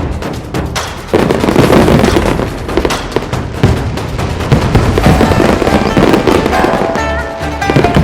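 Fireworks and firecrackers going off in a dense, continuous crackle of rapid bangs, with music audible underneath, its tones coming through more clearly from about five seconds in.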